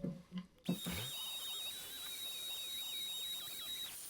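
Electric sander with a mesh sanding pad wet-sanding wood at 1200 grit. It starts about two-thirds of a second in, runs with a steady high whine for about three seconds, then stops.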